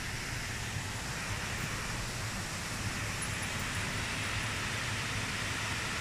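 Rushing of a waterfall and the river running over rocks below it: a steady, even wash of water noise.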